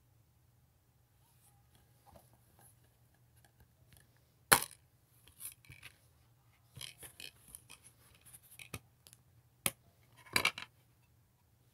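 Plastic DVD keep case handled and opened: a sharp snap of the case, then plastic rattles and clicks as the disc is pressed and pried off its centre hub, with one more sharp click and a short clatter near the end.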